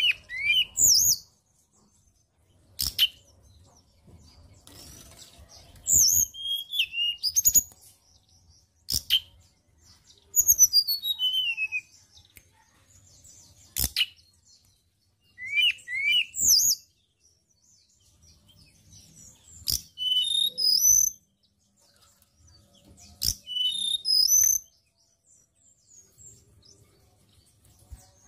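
A caged tledekan gunung (blue flycatcher) singing in short bursts of rapid, high, sliding whistles and chirps. There are about six phrases a few seconds apart, with single sharp clicks between them.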